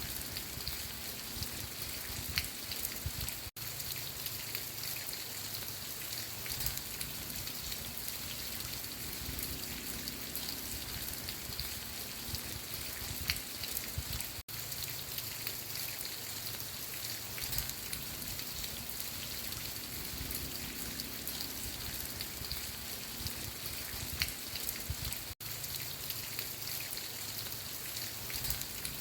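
Steady rain falling, with individual drops ticking through an even hiss. It cuts out for an instant three times, about eleven seconds apart.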